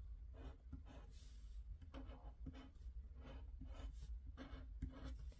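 Scratch-off lottery card being scraped with a plastic scraper: faint, short scratching strokes, about two a second.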